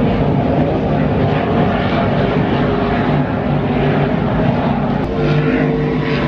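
Offshore racing powerboats' engines running at speed, a steady loud drone that holds its pitch, with a higher engine tone joining about five seconds in.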